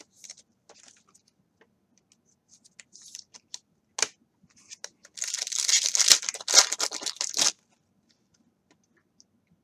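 A 2016 Donruss Optic baseball card pack's wrapper being torn open, a crinkly rip of about two seconds past the middle, after a few light clicks of cards being handled.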